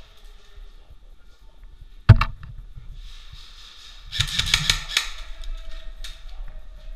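Airsoft gunfire in an indoor arena: one loud sharp bang about two seconds in, then a rapid burst of shots lasting about a second, with a few fainter shots after it.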